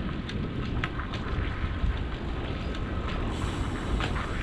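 Wind rushing over the microphone of a moving bicycle, with the tyres rolling on a concrete trail and scattered light ticks.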